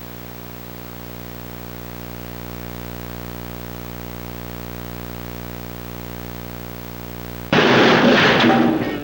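A steady electronic drone made of many sustained low tones, with a slight fast pulse. About seven and a half seconds in, it is cut by a sudden, much louder harsh burst of noise lasting about a second and a half.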